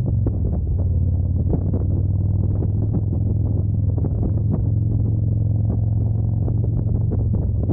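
Steady low mechanical drone with frequent irregular knocks and rattles over it.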